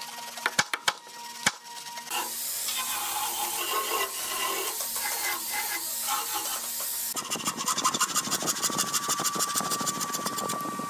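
A few sharp hammer taps on the hardwood cabinet, then a handheld electric sander running against the wood. About seven seconds in it gives way to a fast pulsing machine noise with a steady whine.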